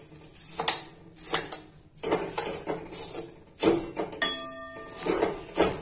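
Steel ladle scraping and knocking against a steel kadhai while stirring vermicelli frying in ghee, in irregular strokes. One sharp clink about four seconds in rings on briefly.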